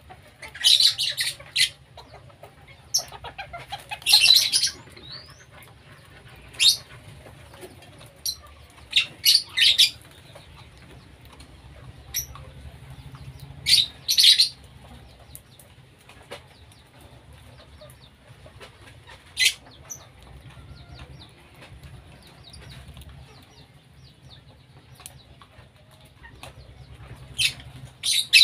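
Short, shrill bird calls from a mixed aviary of lovebirds, a cockatiel and white-rumped shamas, coming in brief bursts every few seconds, clustered in the first half and again near the end. A cockatiel flaps its wings near the start.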